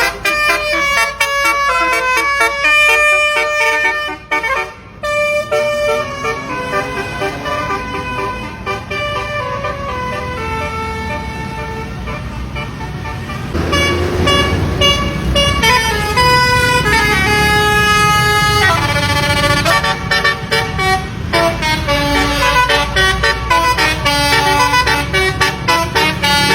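Telolet bus horn, the multi-trumpet melodic horn of Indonesian buses, sounding from a miniature bus model and playing a quick run of changing notes. A low rumble joins about halfway through.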